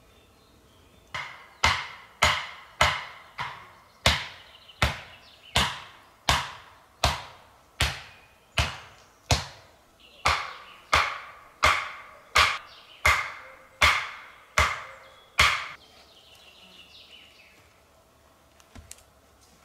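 Steady hammering on wood: about twenty sharp, ringing blows, roughly one and a half a second. They stop about three-quarters of the way in, followed by a couple of light knocks near the end.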